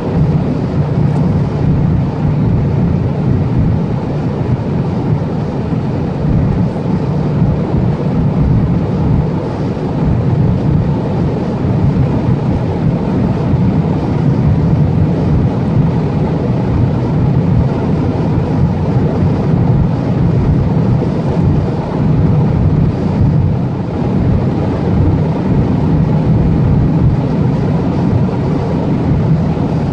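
Volkswagen Jetta 1.4 TSI's turbocharged four-cylinder at close to 6,000 rpm in sixth gear at about 225–230 km/h, heard from inside the cabin. A steady, even drone of engine, wind and tyre noise with no change.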